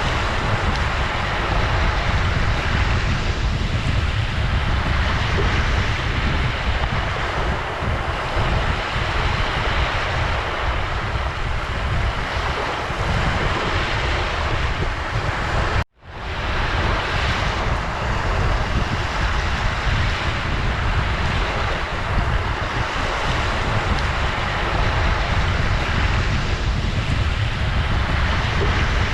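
Ocean surf washing steadily, as an even hiss over a deep low rumble. It drops out abruptly for a split second about halfway through, then comes straight back.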